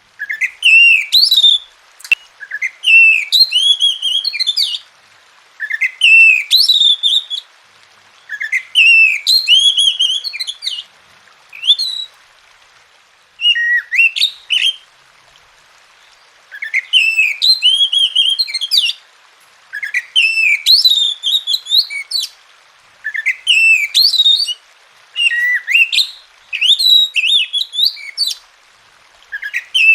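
Oriental magpie-robin (kacer) singing: about a dozen short, loud whistled phrases of quickly rising and falling notes, each a second or two long with brief pauses between. There is one sharp click about two seconds in.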